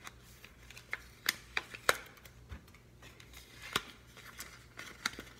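A small taped-shut envelope being handled and pried open: a scattering of short clicks and crackles, a few at a time, with a quiet background between them.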